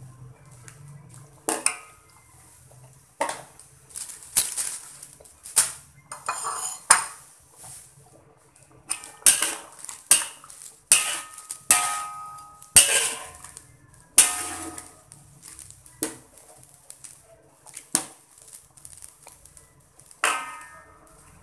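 A metal ladle knocking and scraping against the side of a metal wok while chicken curry is stirred: a dozen or so irregular clanks, a few of them ringing briefly.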